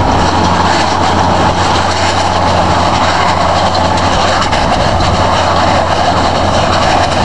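Renault tractor and Welger round baler with bale wrapper working: a loud, steady machinery noise with a constant low engine hum beneath it.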